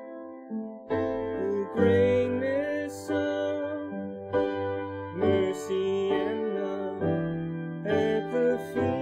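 Keyboard music with a wavering melody line, new notes or chords starting every second or so.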